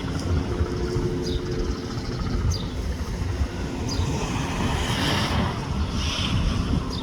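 Bell 206 helicopter running, its rotor and turbine making a steady low rumble. A brief hiss swells about five seconds in and again about six seconds in.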